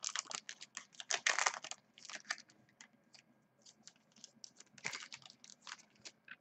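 Foil wrapper of a trading-card pack crinkling and crackling as it is torn open by hand. A dense run of crackles for the first two seconds, then sparser crinkles, with another cluster about five seconds in.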